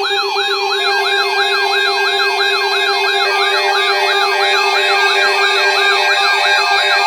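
Several emergency sirens sounding together. A fast yelp sweeps up and down about three times a second over a steady tone, and a second siren's alternating high-low tones join about three seconds in.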